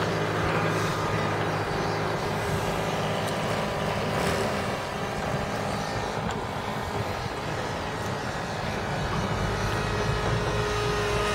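Calmato Sport radio-controlled model airplane's motor droning steadily in flight, holding a nearly constant pitch.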